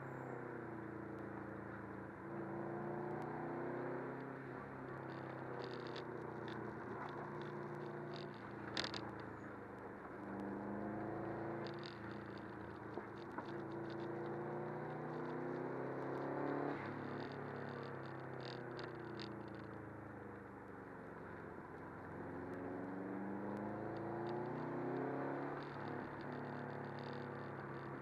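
Subaru WRX's turbocharged flat-four engine heard from inside the cabin while driving, its revs rising and falling over and over through the bends, over steady tyre and road noise with scattered light clicks.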